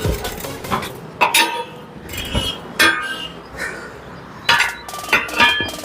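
Metal hand tools clinking and knocking on metal: about ten irregular sharp strikes, each with a brief ring.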